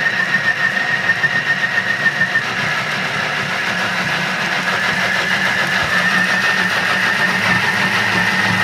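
Thermomix-type food processor running at full speed, its blades pureeing apple pieces: a steady high whine over a low hum. For the first couple of seconds the sound pulses quickly and unevenly, then it runs evenly.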